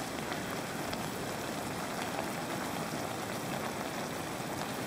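Onions, mushrooms and tomatoes sizzling in a pan on a gas camping stove: a steady, even hiss.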